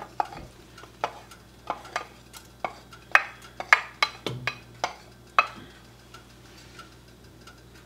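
Wooden spoon scraping and knocking cooked rice out of a ceramic bowl into a pot of soup: a string of sharp taps, about one or two a second, thinning out after about five and a half seconds.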